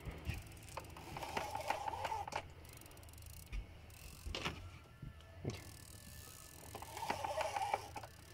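Multiplier fishing reel being wound in two short spells, a fast clicking ratchet-and-gear whirr, as the rod is pumped against a heavy fish. A few single knocks fall between the spells, over a steady low rumble.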